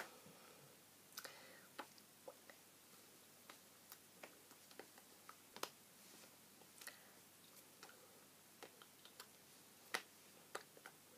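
Near silence broken by scattered faint clicks and soft taps, a few sharper ones, from hands striking and brushing together and clothing moving during sign language.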